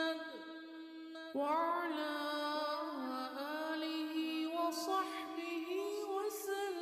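Background music: a voice singing slow, drawn-out melodic lines with long held notes and ornamented turns, a new phrase starting about a second and a half in.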